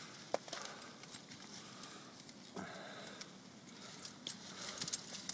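Faint rustling and scraping of clothing against rock and leaf litter as a person crawls into a narrow rock crevice, with a few light, sharp clicks.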